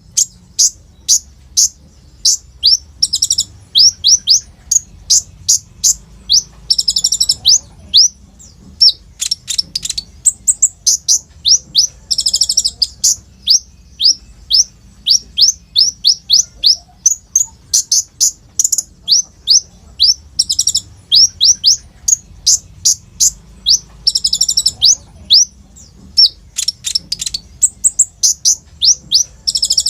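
Kolibri ninja (konin), a small sunbird, singing hard: a fast string of high, sharp, downward-sliding chirps, three or four a second, broken every few seconds by a short rattling trill.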